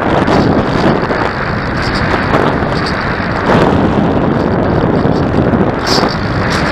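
Wind buffeting the microphone: a loud, unsteady rush of noise.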